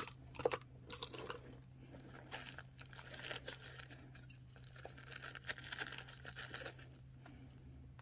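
Crinkling and rustling of packaging handled by hand, in irregular bursts, busiest through the middle of the stretch.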